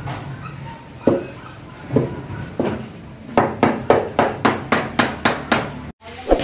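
A hard object knocking on ceramic tile, a few spaced knocks at first and then quicker, about four a second, for a couple of seconds. Just before the end, after a brief break, comes a single hammer blow on a chisel chipping up floor tile.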